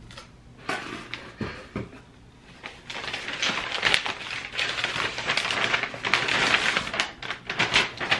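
Brown paper wrapping being torn open and crumpled by hand to unwrap a package. There are a few scattered rustles at first, then a dense run of crackling and tearing from about three seconds in.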